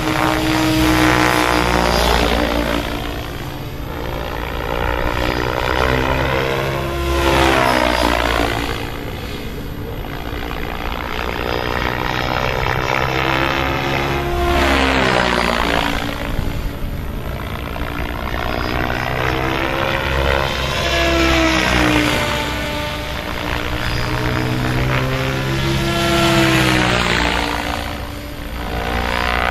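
Henseleit rigid-rotor radio-controlled model helicopter making repeated high-speed passes, its motor and rotor note sweeping up and falling away in pitch each time it goes by, several passes a few seconds apart.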